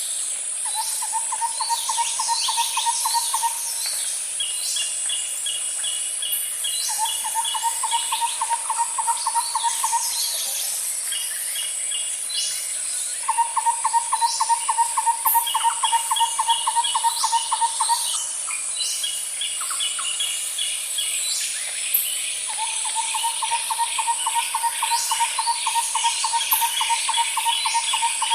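Natural ambience of insects and birds: a steady high-pitched insect chorus underneath, a low pulsed trill lasting a few seconds that comes back four times, and runs of quick higher chirps with short falling calls.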